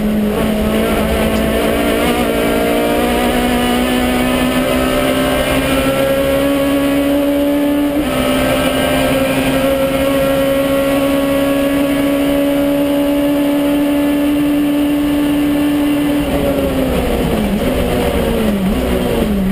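Citroën Saxo Kit Car's four-cylinder rally engine heard from inside the cabin, pulling hard at high revs with an upshift about eight seconds in. Near the end the revs drop and jump up and down in quick steps as the car slows and changes down.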